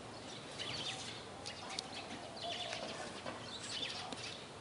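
Small birds chirping: clusters of quick, high, falling notes about once a second, over a faint steady background hiss.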